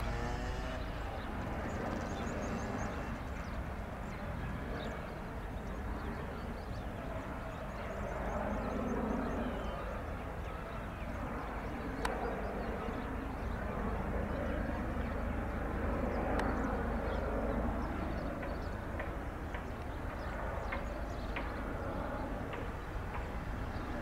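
Steady wind rumble on the microphone over faint outdoor background noise, with a few faint high chirps and a sharp click about halfway through.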